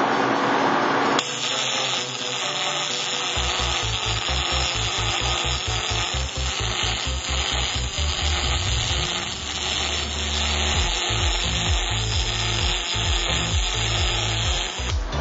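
MIG welding arc burning as a bead is laid along a steel joint, under background music with a steady low beat that comes in a few seconds in.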